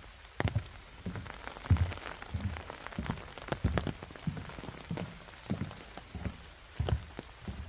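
Rain dripping and pattering in irregular sharp drops onto a surface, over a steady rain hiss, with dull footsteps walking along a forest path.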